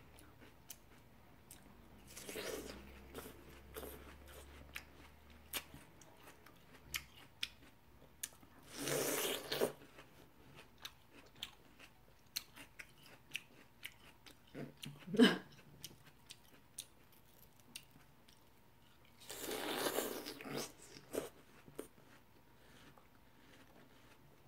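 Close-miked eating of ripe seedless watermelon: juicy, crunchy bites and chewing, with three longer crunching spells about 2.5, 9 and 20 seconds in. Small wet clicks and smacks run between them, and one sharp, louder sound comes about fifteen seconds in.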